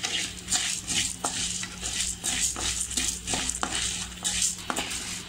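Flat metal spatula scraping a kadai and stirring urad dal, dried red chillies and cumin seeds as they roast, in quick irregular strokes a few times a second.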